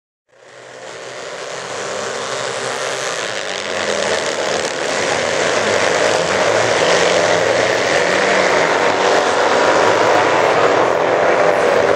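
A pack of kart-cross karts with Citroën 2CV air-cooled flat-twin engines racing, the engines revving up and down together. The sound comes in just after the start and grows louder over the first five or six seconds as the pack closes in.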